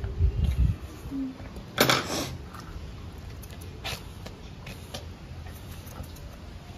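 Shih tzu breathing and snorting while its face is held and trimmed, with one short, loud snort about two seconds in and a fainter one about four seconds in, over rustling of fur and handling.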